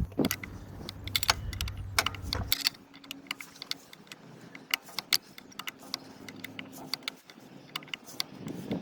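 Irregular metallic clicks and clinks of an 8 mm Allen key working a brake caliper bolt as it is driven in and tightened. A low background hum stops about two and a half seconds in.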